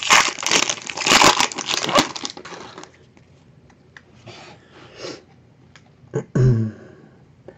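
Foil wrapper of a Bowman Chrome trading-card pack crinkling and being torn open for about two seconds, then fainter rustling as the cards are handled.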